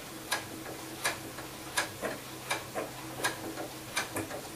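Sewing machine stitching slowly, each needle stroke a sharp click about every three-quarters of a second over a steady motor hum, as it runs its back-and-forth locking stitch.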